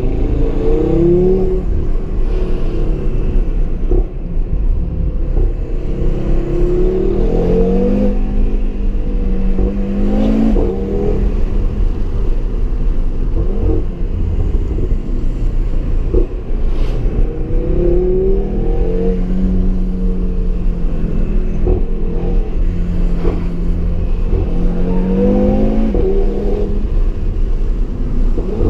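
The 2017 Audi TT RS's turbocharged 2.5-litre five-cylinder engine, heard onboard, revving up through the gears several times with stretches at steady revs in between. A few short, sharp cracks come during the middle of the run.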